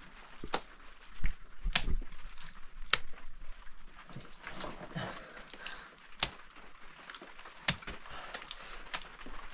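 Wet mud being handled, slapped and pressed by hand onto the rim of a mud-built hearth: irregular wet slaps and sharp clicks, loudest between one and two seconds in.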